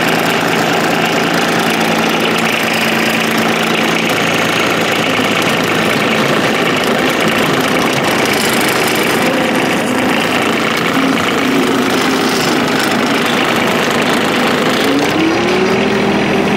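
John Deere 2305 compact tractor's three-cylinder diesel engine running at a steady idle just after a glow-plug start. Near the end the engine speed rises and its pitch goes up.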